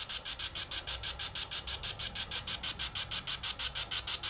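Ghost Tube spirit-box app sweeping, playing through a phone's speaker: static chopped into short, even pulses at about eight a second.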